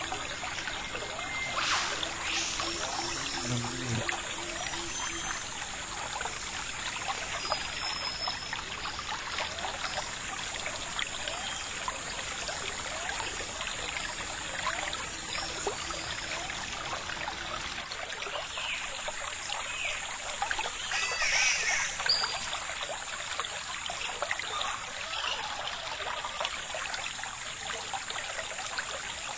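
Steady trickling, running water like a small stream, with a brief louder moment about two-thirds of the way through.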